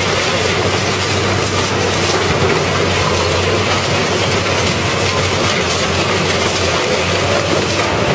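Industrial car shredder grinding up car parts: a steady, loud din of metal scraping and clattering, with many small knocks over a constant low hum.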